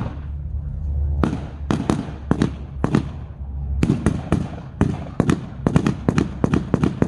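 Blank gunfire from WWII-era rifles and small arms in a battle reenactment: several scattered shots, then from about four seconds in a faster, denser run of shots.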